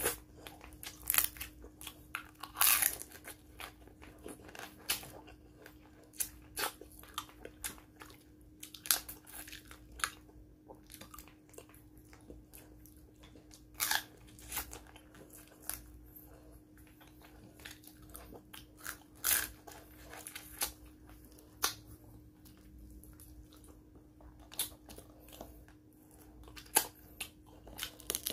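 Close-up eating sounds of cooked blue swimming crab: irregular sharp cracks and crunches of the shell being bitten and broken apart by hand, with chewing and finger-sucking in between. A faint steady hum runs underneath.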